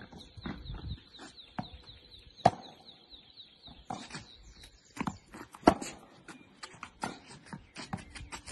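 Tennis ball struck back and forth with rackets in a rally: sharp pops of ball on strings, the loudest about every three seconds, with fainter knocks between. A high warbling chirp runs under the first half.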